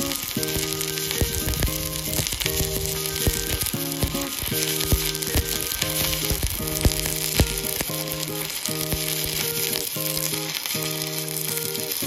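Stick (MMA) welding arc crackling and sizzling steadily as a 3.25 mm rutile electrode burns on a DB Weissenstein ARC 160A mini inverter welder. Background music with repeating held chords plays under it.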